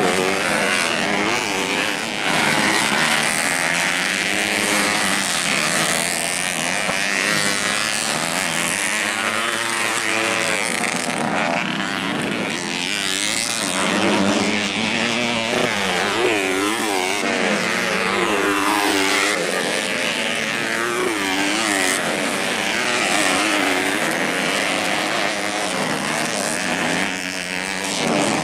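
Several motocross bike engines revving at once, overlapping, each rising and falling in pitch as the riders throttle up and back off.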